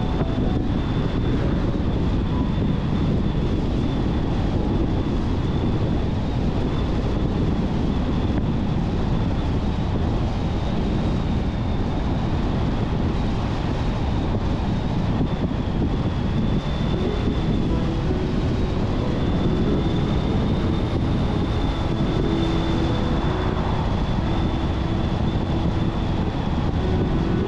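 Car driving steadily along an open road: constant road and wind noise with a thin, faint high whine over it.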